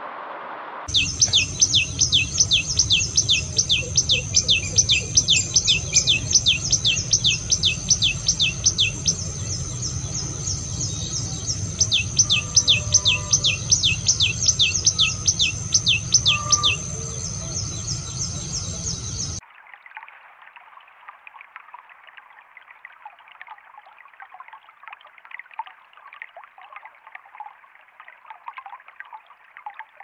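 Common tailorbird singing: a loud run of rapid, repeated down-slurred whistled notes, about three a second, in two bursts with a short pause between, over a low rumble. After the song stops, a shallow stream trickles and splashes softly over rocks.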